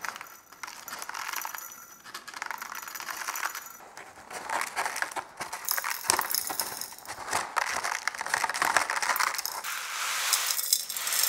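Activated charcoal granules poured through a rolled-paper funnel, pattering and clicking in an irregular rattle onto the glass of a small bulb, louder toward the end.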